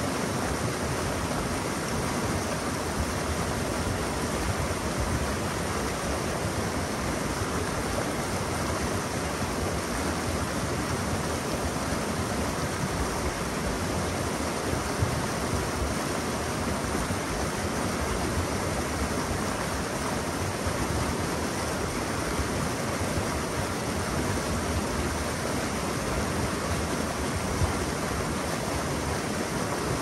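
Mountain river water rushing over rocks: a steady, even rush with no breaks.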